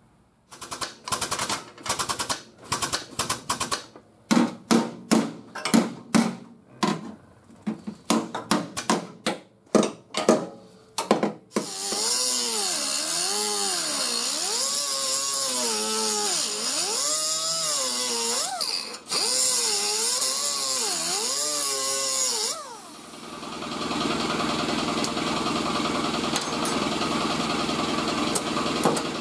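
Small cut-off wheel grinding through sheet steel, a steady hiss whose pitch rises and falls as the wheel is pressed into the metal and eased off. Before it comes a series of about a dozen short, sharp bursts. Near the end the grinding settles into a more even, steady noise.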